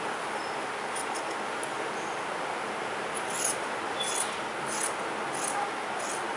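Scissors cutting through cloth: a few snips about a second in, then a regular run of short, crisp snips roughly every two-thirds of a second, over a constant background hiss.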